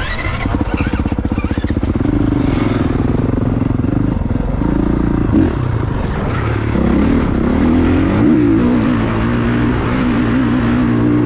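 Dirt bike engine running hard as the bike climbs a dirt trail, its note rising and falling over and over as it revs.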